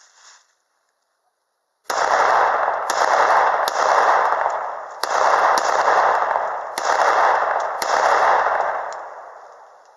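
Glock 19 9mm pistol firing a string of shots spaced about a second apart, starting about two seconds in, each shot trailing off in a long echo.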